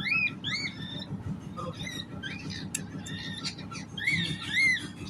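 A pet bird giving repeated short, harsh calls, each one rising and then falling in pitch, with the loudest calls near the end.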